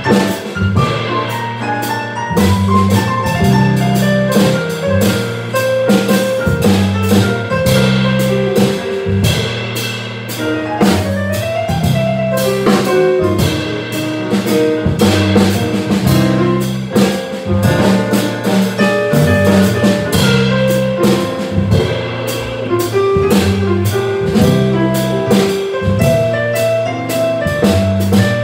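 Small jazz band playing live: drum kit with cymbals keeping time, electric bass repeating a low figure, and a guitar or keyboard line moving step by step above it.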